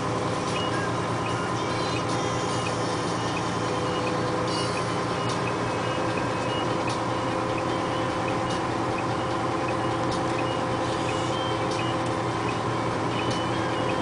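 Dump truck's diesel engine running steadily as the truck rolls slowly along, a constant drone with a few steady tones over it.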